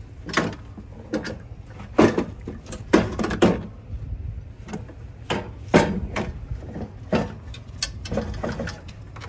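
Irregular clunks, knocks and scrapes of an UltraVac bagger blower housing being handled and fitted against an Exmark zero-turn mower deck, the loudest knocks about two, three and six seconds in.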